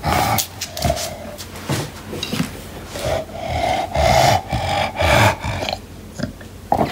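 English bulldog making strange breathy, rasping noises from nose and throat while playing with his ball, one long stretch of them in the middle, with scattered knocks from the play.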